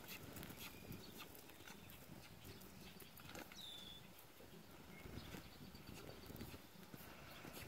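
Faint hoofbeats of a horse cantering on arena sand, scattered soft thuds, with a short high chirp about three and a half seconds in.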